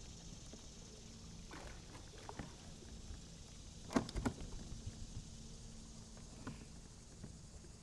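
Light knocks and handling noise on a kayak, with a sharp knock about four seconds in followed by a few smaller taps.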